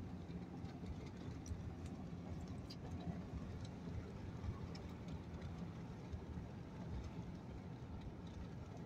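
Pickup truck driving along a country road, heard from inside the cab: a steady low engine and tyre rumble, with a few faint ticks.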